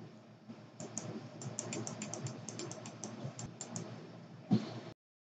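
Computer keyboard keys being tapped: a run of quick light clicks, about six a second. A louder thump comes near the end, and then the sound cuts off abruptly.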